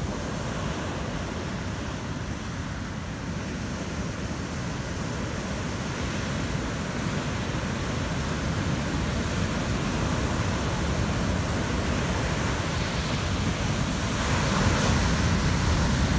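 Large ocean waves breaking and rushing up the beach in a steady roar. The surf grows louder over the last few seconds as a big wave crashes close in.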